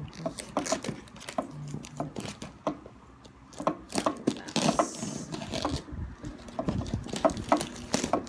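Hands opening a parcel: scattered clicks, taps and rustles of packaging, with a short rasping rustle about halfway through.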